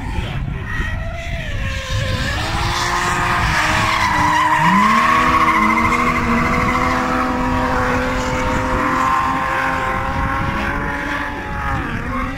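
Two drift cars sliding in tandem through a corner: high-revving engines whose pitch drops and climbs again several times with the throttle, over tyres squealing in a continuous skid. It is loudest in the middle.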